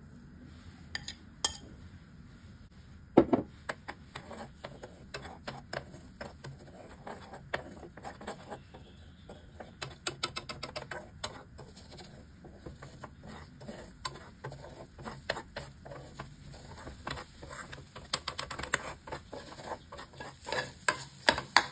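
Metal spatula scraping and clicking against a nonstick pot as eggs are stirred and scrambled, with a sharp knock about three seconds in and quicker, louder clicks near the end.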